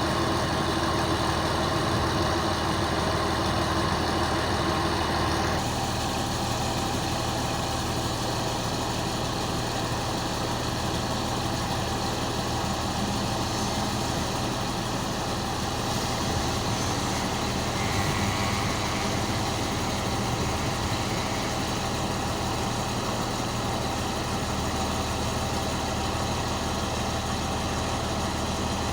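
Engine of a large Mercedes machine (SM200) running steadily at idle; its note shifts once about five and a half seconds in and then holds.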